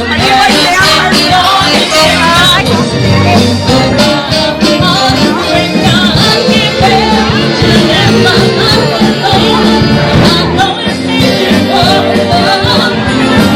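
Live band playing a song with a lead singer, loud and continuous.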